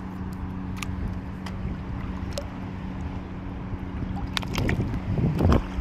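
Wind on the microphone and shallow sea water sloshing on a reef flat, over a steady low hum. A louder rush of splashing water comes near the end.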